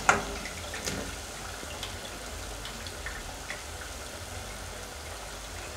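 Deep-frying oil in a pot sizzling gently with scattered small pops as battered broccoli bites are scooped out with a metal ladle, oil dripping back into the pot. A sharp clink of the ladle against the pot at the start, and a lighter one just before a second in.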